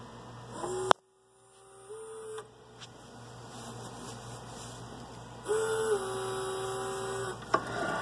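Motors of a Biotage Robot Sixty vial-handling arm whining as the arm moves, in separate moves of a second or two. Each move gives a steady tone that rises at the start and steps up in pitch partway through. A sharp click comes near the end, over a steady mains hum.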